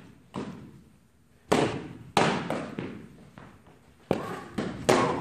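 Balls striking hard surfaces: about half a dozen sharp, irregularly spaced bangs, each ringing on in the echo of a large indoor hall.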